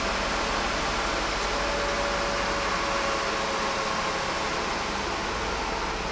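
Ford Taurus SHO V6 idling, heard from inside the cabin, a steady noisy hum with a faint whine that falls slightly in pitch midway. The engine is running through the EEC-IV key-on-engine-running self-test.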